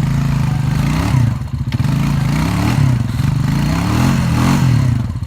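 Rancher ATV engine revving up and down several times as the machine fights for traction in mud, its tires packed with mud so they can't grip.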